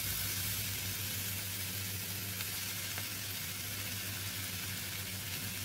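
Chopped vegetables sizzling in a non-stick wok as they are stir-fried, a steady frying hiss with a couple of faint spatula ticks, over a steady low hum.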